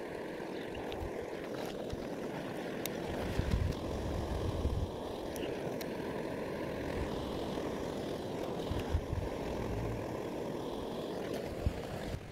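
Steady rush of water spilling over a small rocky cascade, with wind gusting on the microphone now and then.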